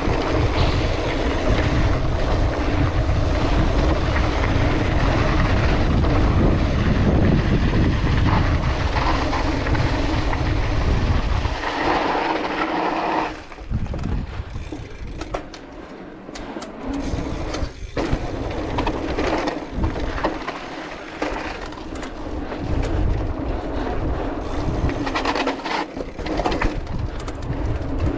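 Cross-country mountain bike riding fast over a dirt lane: steady rushing noise with a deep rumble of tyres and wind on the camera. About twelve seconds in it slows and goes quieter, with scattered clicks and knocks from the bike, then the rolling noise picks up again.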